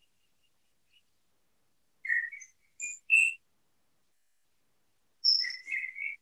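A bird chirping in two short bursts of whistled notes, one about two seconds in and another near the end.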